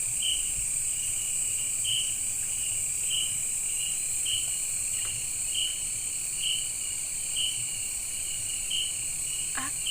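Chorus of night insects: a steady high-pitched drone with a chirp repeating roughly once a second over it.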